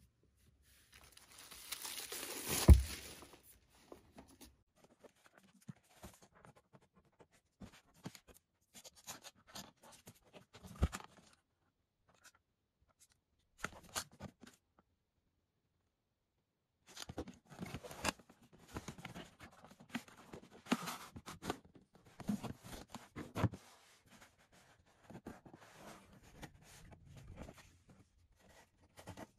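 Plastic shrink wrap torn off a cardboard product box, with one sharp loud snap near the start. Then the cardboard box is handled and opened, with rustling, light knocks and paper sounds.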